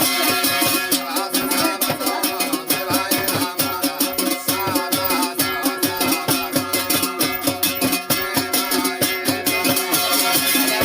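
Garhwali folk music playing with a fast, steady beat of rhythmic strokes over held tones.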